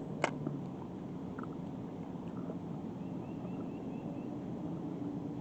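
Outdoor ambience: a steady low rumble, with a sharp click about a quarter-second in and a few fainter ticks, and a bird giving a quick run of six short chirps about three seconds in.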